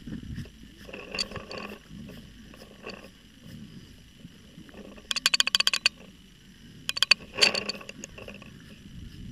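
Paintball marker firing a rapid burst of about ten shots in under a second, a little past halfway, then a shorter burst of shots about a second and a half later.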